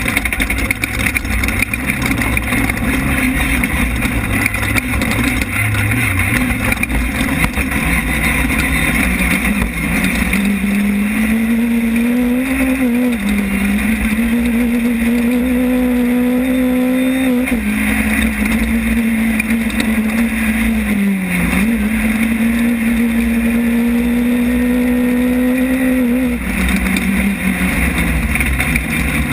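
Class 10 desert off-road race car engine heard from inside the car, running hard under load over heavy road and rattle noise. The engine pitch climbs and holds high, drops briefly twice, and falls back near the end.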